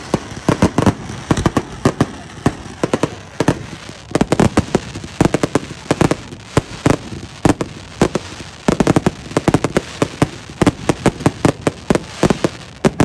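Fireworks display: sharp bangs of shells launching and bursting, several a second, coming in dense irregular volleys with crackling between.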